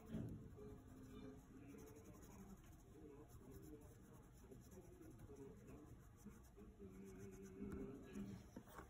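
Coloured pencil drawing on paper: faint, uneven strokes of the pencil lead across the sheet while shading, with one brief soft knock at the start.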